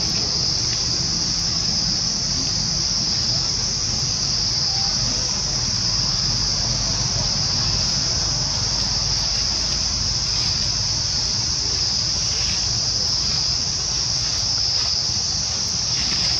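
Steady, unbroken high-pitched drone of insects, with a low rumble beneath it.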